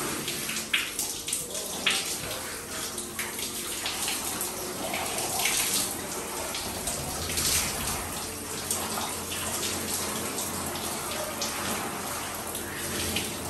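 Handheld shower head spraying water over a wet dog's coat and into a stainless steel dog-wash tub, a steady splashing with many small spatters.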